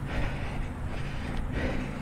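Wind rumble on a head-mounted camera's microphone while running, with a hissing rhythm about every two-thirds of a second from the runner's hard breathing at a heart rate in the mid-160s. A low steady hum joins about halfway through.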